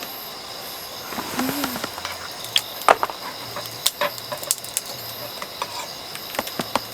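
Crickets chirping steadily, with scattered sharp clicks and pops over a light hiss.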